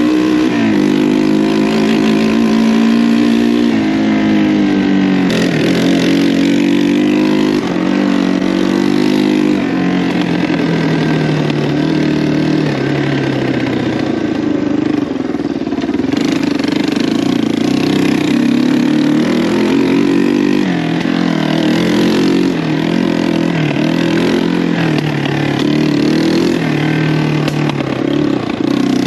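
1985 Yamaha 225DX three-wheeler's single-cylinder four-stroke engine running under way, its pitch climbing and dropping again and again as it is revved up through the gears and eased off.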